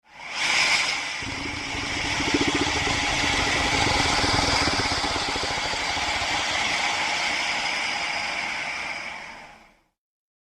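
A crocodilian's low, pulsing growl with a hiss over it, swelling in during the first second and fading out near the end.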